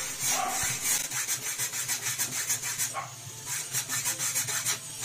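Scooter side mirror being twisted on its threaded stem, a fast run of rasping clicks, about six a second, in two spells with a short pause between.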